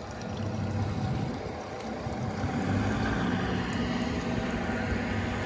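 Twin Yamaha outboard motors idling with a steady low hum; the pitch shifts slightly about halfway through.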